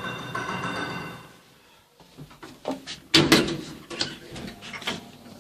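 Lift doors sliding and clattering: a steady electronic tone for about the first second and a half, then a run of clicks and knocks with one loud knock about three seconds in.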